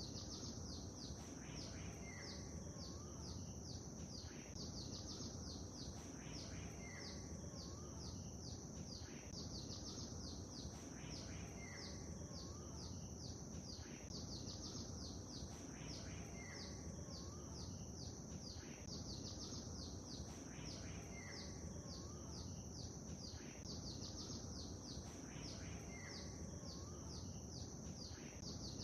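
Birds chirping and twittering over a steady background wash of lake ambience. The same short pattern repeats about every four seconds.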